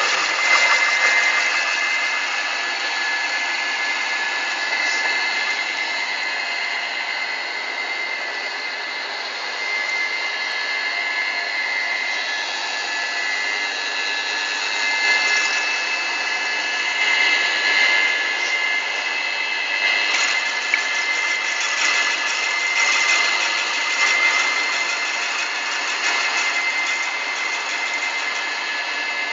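Centre lathe running with a cutting tool machining a large spinning disc-shaped workpiece: a steady mechanical whine with high tones, swelling in places and broken by a couple of sharp clicks in the second half.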